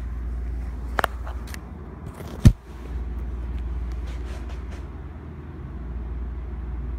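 A steady low hum runs throughout. A couple of sharp clicks come about a second in, then a single loud thump about two and a half seconds in, followed by a few faint ticks.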